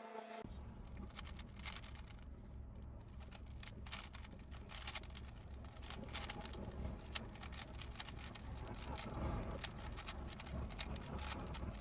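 Rapid, irregular plastic clicking of a GAN 15 speedcube's layers being turned, over a low steady hum.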